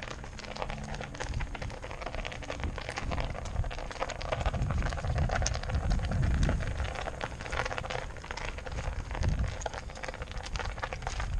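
A tire studded with drywall screws, rolled by hand across wet asphalt: a dense patter of small clicks as the screw studs strike the pavement.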